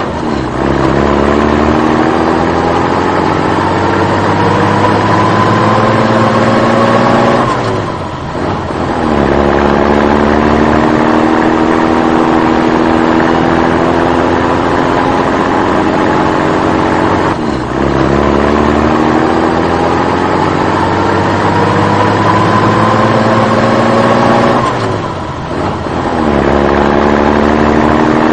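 Vehicle engine accelerating. Its pitch climbs slowly for about eight seconds, then drops sharply as if shifting gear. This repeats three times, and a fourth climb begins near the end.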